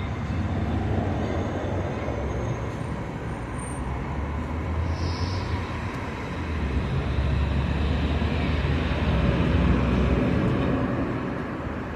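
Low rumble of street traffic, swelling as a vehicle passes about seven to eleven seconds in.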